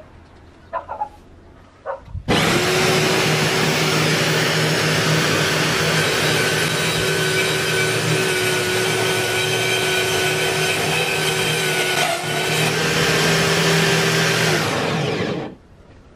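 A few short knocks, then an electric power tool switches on and runs at steady high speed with a constant whine. Its sound dips briefly about ten seconds in, then it is switched off and spins down with falling pitch.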